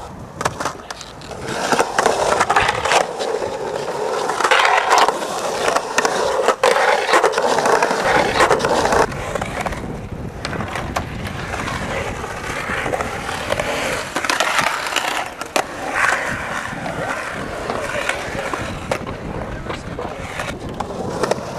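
Skateboard wheels rolling on a concrete bowl, the rolling noise swelling and fading as the skater carves the walls, with a few sharp clacks of the board.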